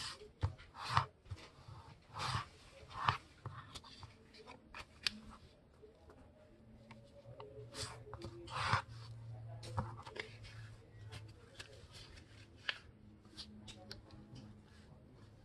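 A sheet of letter-size paper being folded by hand: an irregular string of short, crisp paper rustles and crease-pressing swipes.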